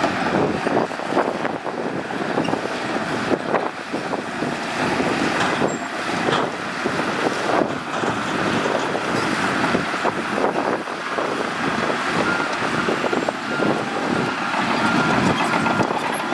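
Shantui crawler bulldozer working: its diesel engine runs under a continuous clatter and knocking of steel tracks. In the last few seconds a faint reversing beeper sounds in short, evenly spaced beeps.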